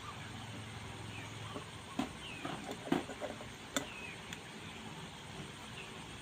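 A few faint, sharp clicks and taps of small tools working a firmly seated capacitor off an LED bulb's circuit board, about three of them near the middle. Faint bird chirps sound now and then in the background.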